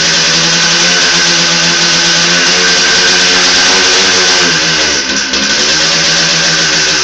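Two-stroke Yamaha DT motorcycle engine running steadily with a moped's CDI ignition unit fitted. The revs dip briefly about five seconds in and pick back up.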